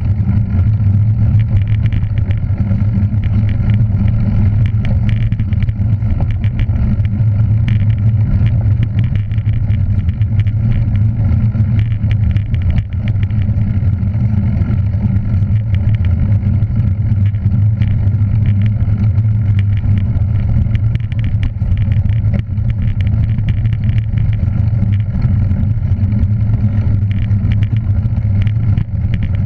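A motor vehicle's engine running at a steady speed, a constant low drone that does not rise or fall.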